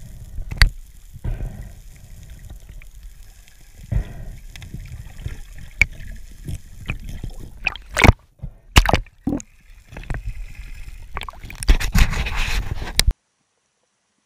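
Underwater sound picked up through a camera housing: gurgling bubbles and a low rumble, broken by irregular sharp knocks and clicks that come thickest about eight to nine seconds in and again near the end. It cuts off suddenly about a second before the end.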